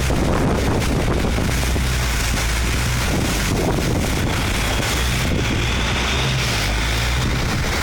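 Motorboat engine running steadily at speed, a constant low drone, with water rush and wind buffeting the microphone.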